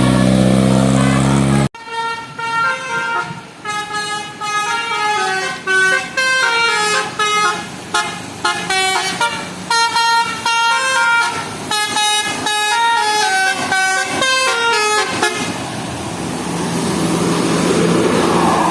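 Bus telolet 'basuri' multi-tone horn playing a fast melody of short stepped notes, starting about two seconds in and stopping about fifteen seconds in. Engine and road noise follow.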